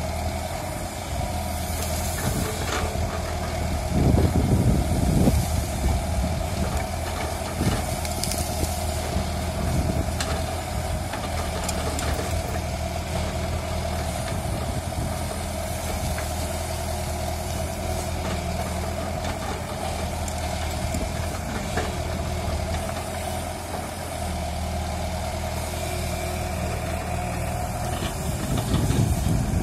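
JCB JS140 tracked excavator's diesel engine running steadily as the boom and bucket work through tall vegetation, swelling louder about four seconds in and again near the end, with a few short knocks.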